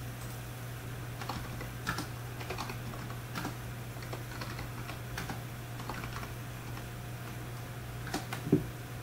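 Computer keyboard keystrokes: scattered single key presses as numbers are typed in, with one louder click near the end. A steady low hum runs underneath.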